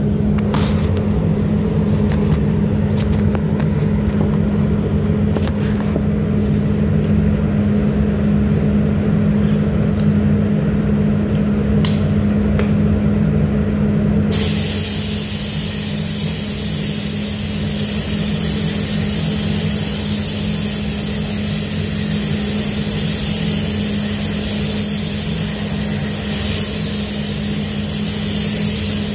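Paint booth ventilation running with a steady low hum. About halfway through, a steady hiss of air switches on and keeps going.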